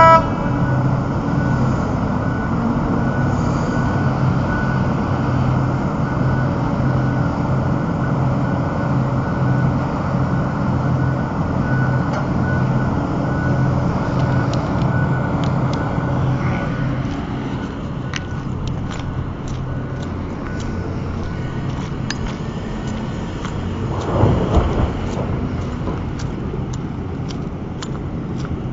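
Heavy diesel engine of a Caterpillar 6040 mining excavator running steadily with a constant hum. The hum eases about seventeen seconds in, and there is a brief louder surge near twenty-four seconds.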